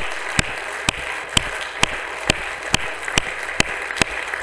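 Congregation applauding, with a steady rhythm of loud single claps about twice a second standing out above the general clapping.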